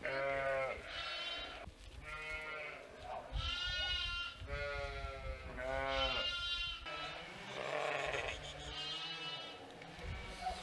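A flock of sheep bleating, about eight calls one after another at different pitches, from several animals.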